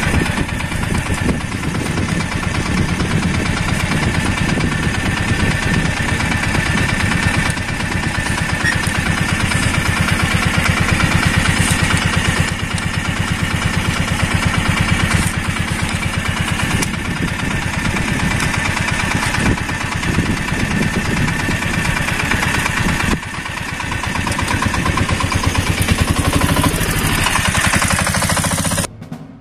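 Auto-rickshaw engine idling with a steady, even chugging; the sound cuts off abruptly near the end.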